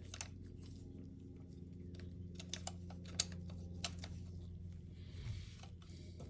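Scattered light clicks and taps of small airsoft rifle parts being handled and fitted during disassembly, over a steady low hum.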